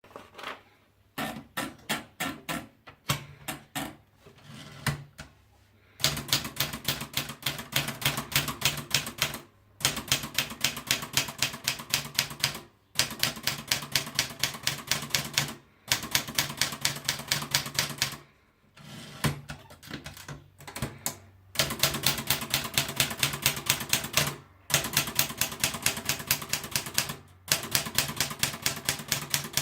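Erika model 50/60 manual portable typewriter being typed on: quick runs of sharp keystrokes, about six a second, broken by short pauses every few seconds.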